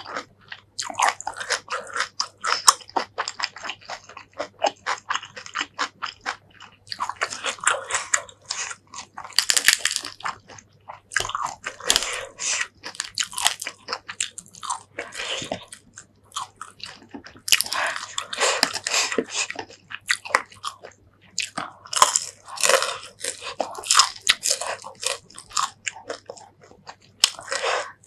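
Close-miked chewing and biting of a hand-eaten meal of fried fish and rice with shrimp paste chilli sauce: wet, clicky mouth sounds in dense bursts broken by short pauses.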